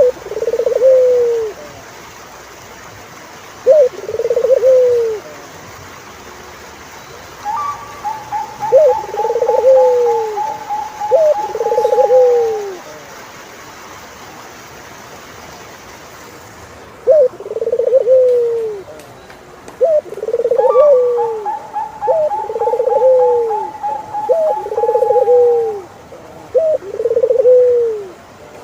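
Turtle doves cooing: repeated short coos, each about a second long and falling at the end, with twice a longer, higher, fast rattling trill laid over them.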